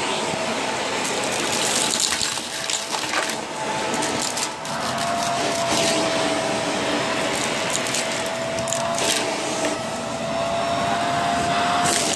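Shark vacuum cleaner running with a steady motor whine, with scattered clicks and crackles as it sucks up debris.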